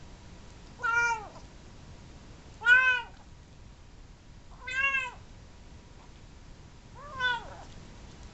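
Seal point Siamese kitten meowing while it eats: four short meows about two seconds apart, each rising and then falling in pitch.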